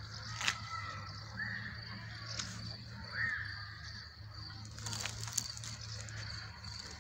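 Evening outdoor ambience: a few short bird calls, one about a second and a half in and a clearer one about three seconds in, over a steady, high, pulsing insect chirring and a low steady hum, with a few small clicks.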